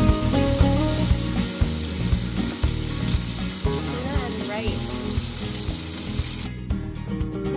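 Tuna steaks sizzling in a hot cast-iron skillet, a loud frying hiss that cuts off suddenly near the end, over background music.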